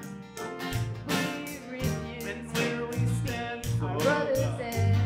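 A live worship band playing a song: strummed acoustic guitar over electric bass and grand piano, in a steady rhythm.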